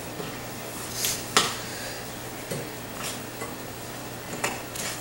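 Metal utensil stirring a crumbly oat and melted-butter topping in a glass mixing bowl: irregular clinks and scrapes against the glass, the sharpest about a second and a half in.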